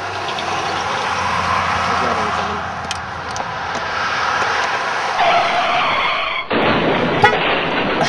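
Pickup truck driving past, a steady noise of tyres and engine. About six and a half seconds in the sound changes abruptly to a denser noise, with a single sharp knock near the end.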